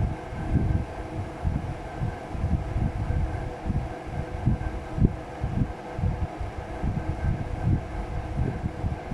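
Uneven low rumbling of air buffeting the microphone, over a steady hum.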